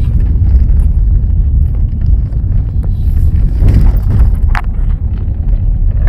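A car driving, with a steady low rumble of engine and road noise and a brief sharp sound about four and a half seconds in.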